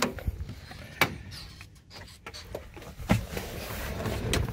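Jeep Cherokee XJ driver's door being opened and someone climbing into the seat: a sharp latch click at the start, a louder knock about a second in, and another about three seconds in, with small rustles and clicks between.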